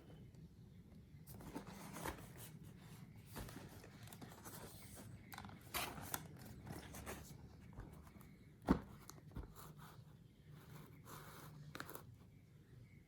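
Handling noises from unboxing a keyboard: rustling and scraping of packaging with scattered light clicks and taps, and one sharp knock about eight and a half seconds in.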